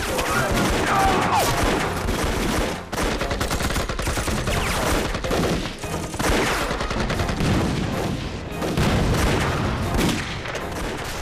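Dense gunfire from many guns at once, the shots overlapping in rapid succession without letup, with men shouting early on.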